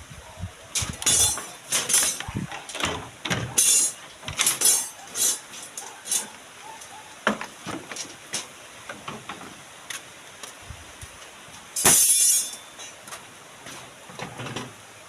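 Irregular knocks and clatters of construction work, with a louder, longer clatter about twelve seconds in.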